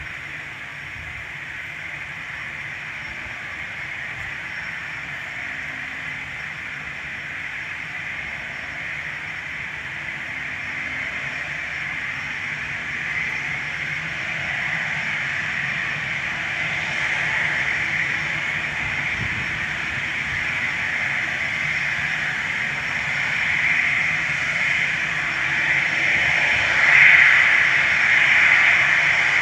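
Jet airliner engines, a steady hissing rush with a low rumble beneath, growing steadily louder throughout as the aircraft nears.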